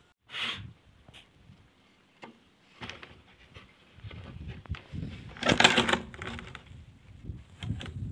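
Goats in a pen. A short call comes about half a second in, and a louder call of about half a second a little past the middle, over low shuffling and rustling.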